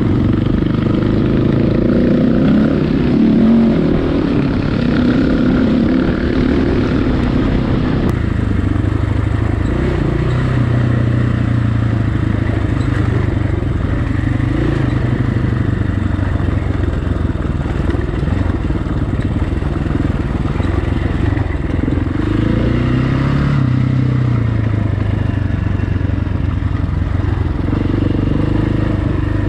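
690 cc single-cylinder enduro motorcycle being ridden off-road, its engine running under load and rising and falling in pitch with the throttle, over a steady rush of wind and road noise.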